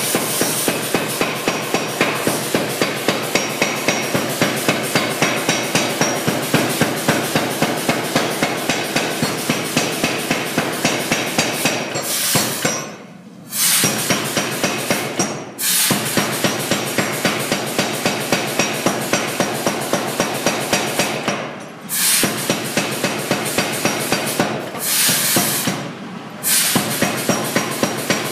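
Blu Max 110 power hammer hammering a hot steel bar in rapid, even blows, stopping briefly a few times, the longest pause about halfway through.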